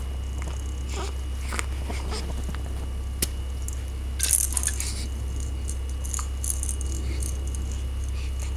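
A baby's toy clicking and rattling as it is played with: scattered clicks, then a short burst of rattling about four seconds in, over a steady low hum.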